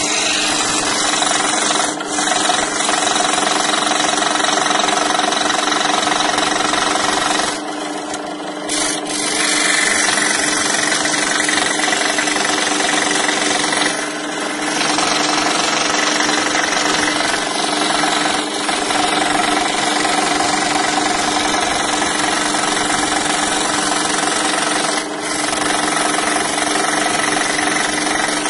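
Scroll saw running, its reciprocating blade cutting 10 mm birch plywood with a steady rapid buzz over the motor's hum. The sound dips briefly a few times, around eight seconds in for over a second.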